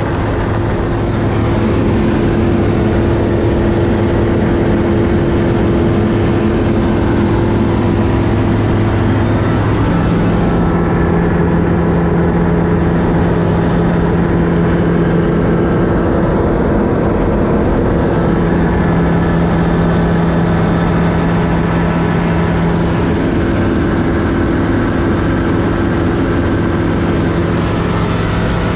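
Just Aircraft Highlander light aircraft in cruise: a loud, steady engine and propeller drone with air noise, heard from inside the cockpit. The pitch pattern of the drone shifts slightly about ten seconds in.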